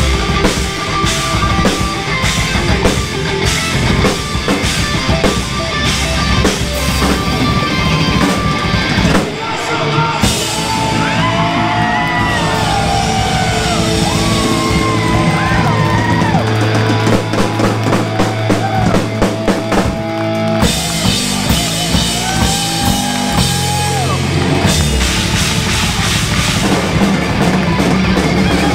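Live melodic punk band playing loud: drum kit, distorted electric guitars and bass. About a third of the way in the drumming thins out and bending lead lines run over held bass notes; the full fast beat comes back near the end.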